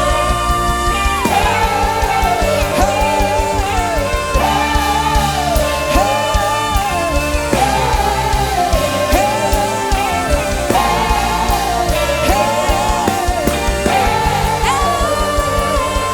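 Music with a steady beat and bass, and a sung or played melody repeating in short phrases, as in Christian worship music.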